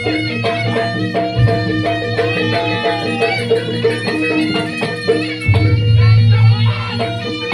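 Live Javanese jaranan campursari ensemble music: a melody line over sustained low tones and steady percussion.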